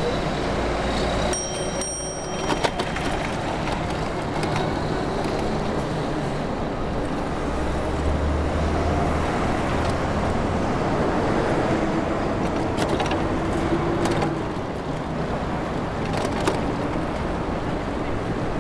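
Steady city traffic noise heard from a moving bicycle, with cars and box trucks running in the lanes beside the bike lane. A brief high-pitched ring comes about a second and a half in.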